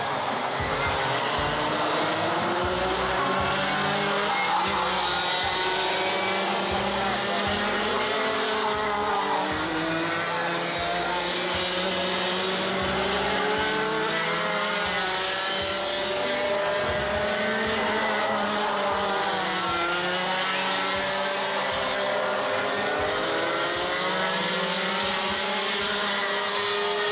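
Several two-stroke junior racing kart engines, their pitch repeatedly rising and falling as the karts lift off and accelerate through the corners, with several engines overlapping.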